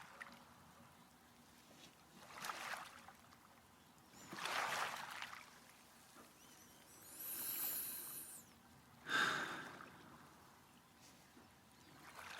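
A man breathing slowly in and out close to the microphone: about five soft breaths a couple of seconds apart, with near quiet between them.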